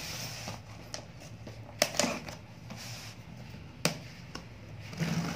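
Cardboard shipping box being handled and worked open by hand: scattered sharp taps and knocks on the cardboard, the loudest about two and four seconds in, with brief scraping along the box.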